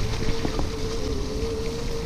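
Riding an electric bicycle: wind buffeting the microphone and tyre rumble, with a steady, slightly wavering mid-pitched whine from the RadMini's geared rear hub motor.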